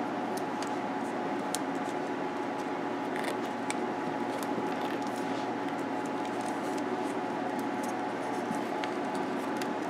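Small scratchy clicks and rustles of plastic wire nuts being twisted by hand onto thin doorbell-type wire, over a steady background hum.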